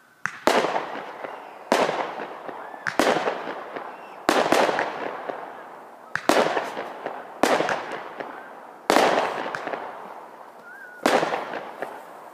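Firework shells bursting one after another: about eight sharp bangs one to two seconds apart, each trailing off over about a second.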